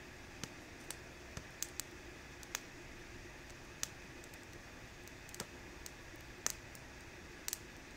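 Wood fire crackling in a mesh fire pit: sharp, separate pops at irregular gaps over a faint steady hiss.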